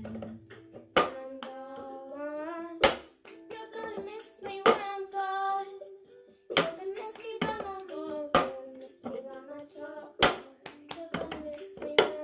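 A girl singing while clapping and knocking a tumbler on a tabletop in the cup-game routine, with sharp claps and cup knocks between the sung phrases.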